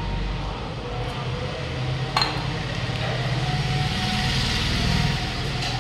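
A steady low hum of background noise, with one sharp click a little over two seconds in.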